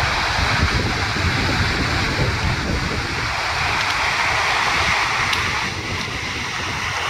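Rocky mountain stream rushing over stones in a steady, loud rush of white water, easing slightly near the end, with wind rumbling on the microphone.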